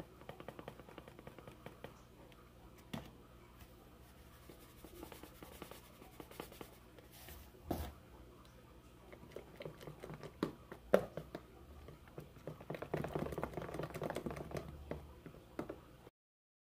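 Faint hand-mashing and stirring of a thick banana paste in a clear plastic food container: soft squelches and scrapes with irregular light clicks and knocks of the plastic, and a sharper knock about eleven seconds in. The sound cuts off abruptly just before the end.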